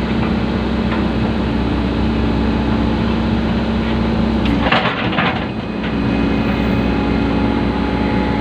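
Excavator's diesel engine running steadily as the machine presses a drain culvert down into place, with a brief harsh rush of noise about five seconds in.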